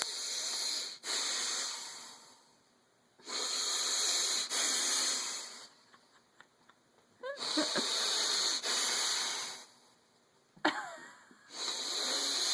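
A person making loud, exaggerated wheezing breaths, four long drawn-out breaths with short pauses between them, two of them opening with a brief squeaky rise in pitch.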